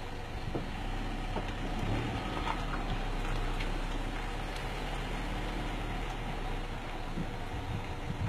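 Vehicle engine idling steadily with a low, even hum.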